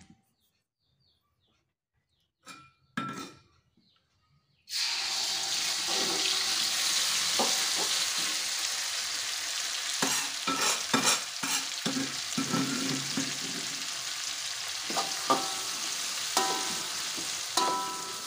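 Ground chili and shallot spice paste frying in hot oil in an aluminium wok: a loud sizzle starts suddenly about five seconds in and then keeps going steadily. From about halfway on, a metal spoon scrapes and clinks against the wok as the paste is stirred.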